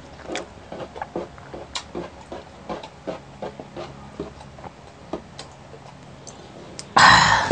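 Close-up mouth sounds of eating and drinking: a scatter of small clicks and smacks from chewing and gulping, then a loud half-second burst of breath-like noise near the end.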